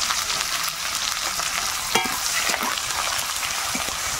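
Chopped onions sizzling in hot oil in a metal kadai, stirred with a steel spatula that scrapes and taps against the pan, with one sharper ringing clink about halfway through.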